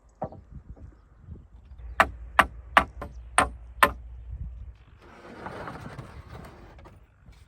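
Five sharp strikes on wood about half a second apart, like a hammer driving a nail, followed by about two seconds of rustling, scraping noise.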